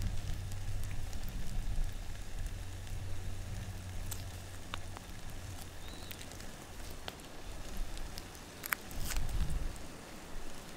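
Campfire burning, with scattered sharp crackles and pops. A steady low hum runs underneath and fades out about halfway through.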